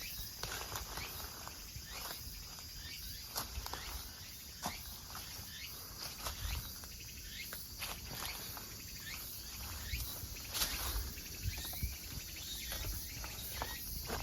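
Footsteps of a person walking on a mountain trail, with irregular snaps and crackles from the ground underfoot. A faint steady insect hum runs underneath.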